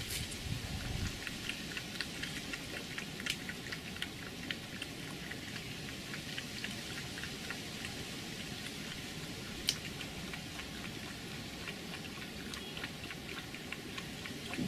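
Red fox cub foraging at ground level, small irregular clicks and crunches as it noses and chews, over a steady hiss; one sharper click about ten seconds in.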